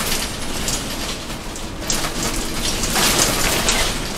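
City bus rattling as it drives: steady engine and road rumble with loose panels and fittings clattering, and a stronger hiss about three seconds in.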